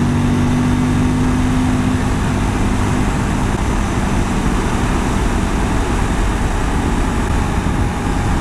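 Suzuki V-Strom 1000's V-twin engine running at a steady cruising speed, with wind rushing over the microphone. After about three seconds the engine's even note blurs under the wind noise.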